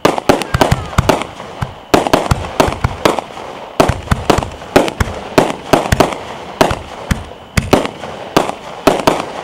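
Multi-shot consumer fireworks going off in rapid succession: a string of sharp bangs and crackling bursts, several a second, which stops just before the end.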